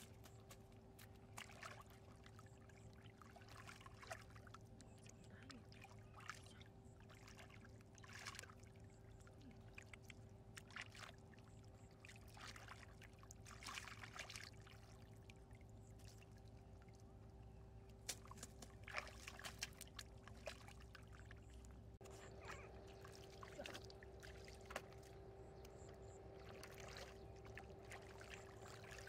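Muddy water sloshing and splashing in irregular, faint bursts as hands and a plastic basket scoop through a shallow pool of mud.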